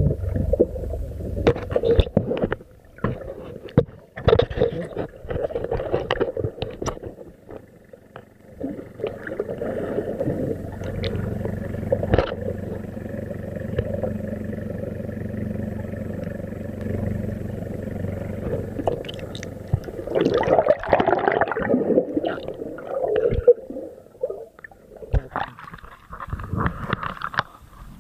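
Underwater sound picked up by a submerged camera: gurgling and sloshing water with scattered knocks and clicks, and a steady hum for about ten seconds in the middle.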